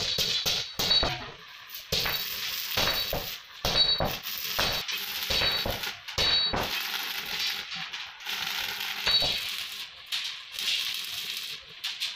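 Flat steel strips clinking and ringing against each other and the iron chair frame as they are handled into place, in quick sharp knocks. In the second half, arc welding crackles and hisses more steadily as the strips are welded to the frame.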